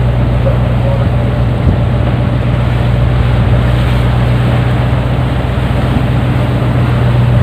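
Longline tuna boat's engine running steadily underway, a loud low drone, with wind and rushing sea noise over it.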